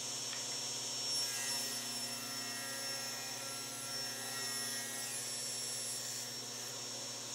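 SawStop table saw running, a steady motor-and-blade whine. From about a second in until about six seconds a sharper whine rides on it as the blade rips a cherry board.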